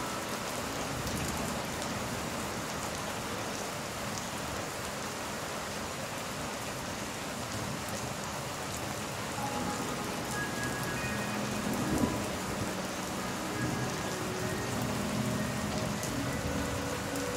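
Steady heavy rain falling, a dense even patter, with faint soft held tones from gentle background music in the second half and one brief louder thump about twelve seconds in.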